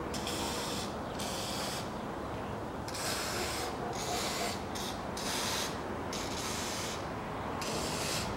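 Aerosol can of engine assembly lubricant hissing in about eight short spurts, each under a second. The spray is coating the camshaft bearing journals of an aluminium cylinder head.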